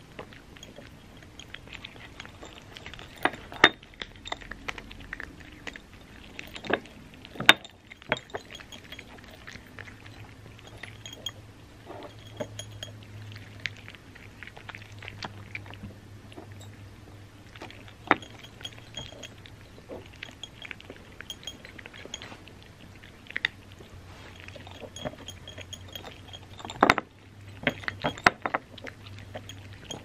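Cats crunching and chewing crunchy dry cat treats from small saucers, with irregular sharp clicks and clinks against the saucers.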